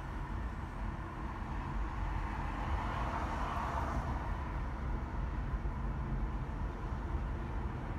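Car driving on a city road: a steady low rumble of engine and tyres, with a swell of road noise about three to four seconds in.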